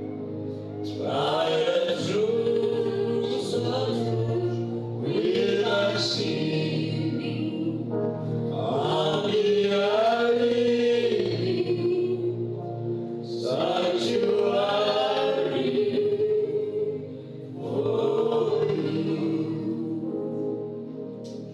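Group of voices singing a gospel song together in long phrases, each starting about every four seconds with short breaks between them.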